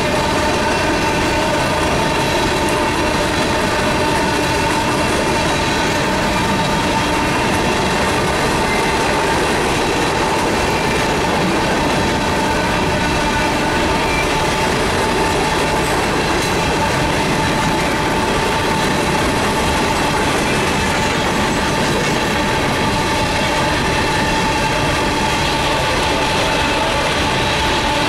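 Empty steel coal hopper cars rolling steadily past: a constant rumble of wheels on rail, with a steady high ringing whine held over it.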